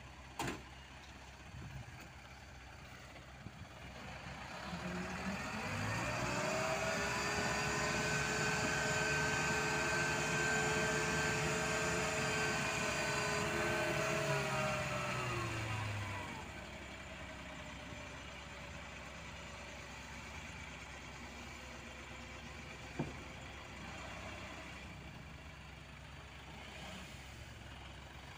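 Light dump truck's engine revved up and held at high revs for about ten seconds while the hydraulic ram tips the loaded bed, then falling back to a steady idle. A sharp knock comes near the start, and a single click later.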